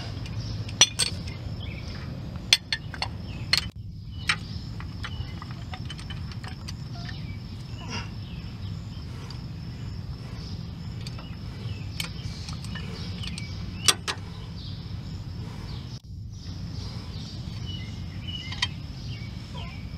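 Scattered sharp metal clinks and clicks as a screw clamp and an old brake pad are fitted against the brake caliper's pistons, most of them in the first few seconds, over a steady low outdoor background hum.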